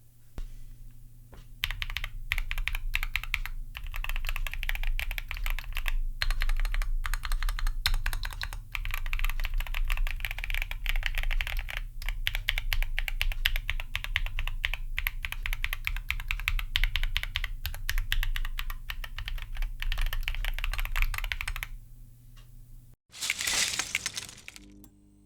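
Rapid, continuous key presses on a Keychron Q0 Max aluminium macropad with lightly tactile Gateron Jupiter Banana switches and thick PBT double-shot keycaps, clacking steadily until they stop about 22 seconds in. A brief loud burst of noise follows near the end.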